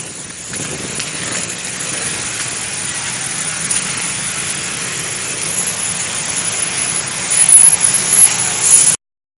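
Road traffic noise of a bus passing, a steady rush of engine and tyre sound, growing louder with uneven peaks near the end before the sound cuts off abruptly.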